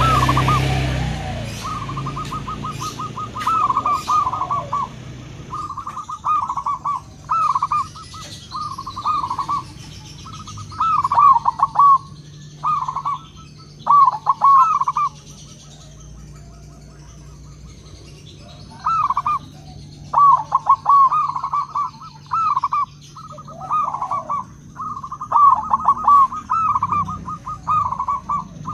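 Zebra dove (perkutut) cooing: repeated phrases of quick, rolling coo notes, each a second or so long, with short pauses between. A brief rush of noise opens it.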